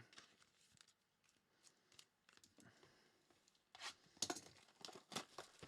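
Near silence, then from a little before the middle several short rips and crinkles of foil trading-card pack wrappers being torn open and handled.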